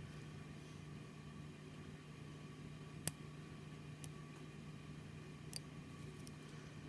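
Steel dental hand instrument tapping and scraping on plastic typodont teeth: a few light, sharp clicks, the sharpest about three seconds in, over a steady low hum.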